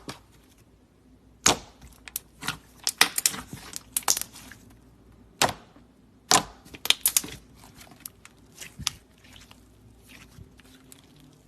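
Thick white glossy slime being worked by hand, giving sharp clicks and pops in irregular clusters with short pauses between.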